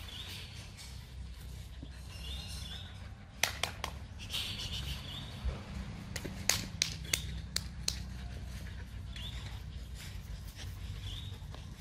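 German Shepherd puppies giving short, high whines and yelps now and then, with sharp clicks and rattles of the wire-mesh fence as they jump up against it, bunched in two spells around the middle.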